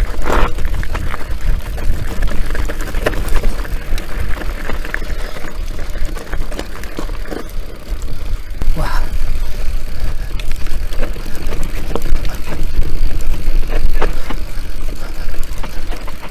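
Mountain bike riding down a rocky alpine trail: wind rumbling on the handlebar camera's microphone, with the tyres rolling over stones and short knocks and rattles from the bike at each bump.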